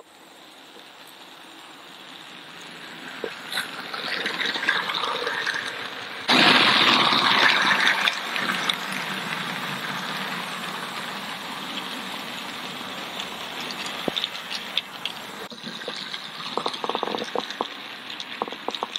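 OO gauge model trains running on outdoor garden track: a steady rushing rumble of wheels and motors that grows as a train approaches, louder for a couple of seconds from about six seconds in, with a run of clicks near the end.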